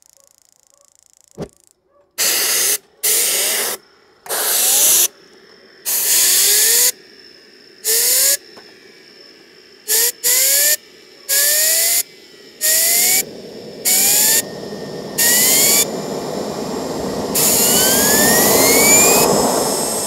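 Compressed-air blow gun fired in about a dozen short hissing blasts into the inlet of a homemade gas turbine, spinning it up for a start; the turbine's whine rises in pitch during each blast. Near the end the air is held on for several seconds and the whine keeps climbing. A single sharp click comes about a second and a half in.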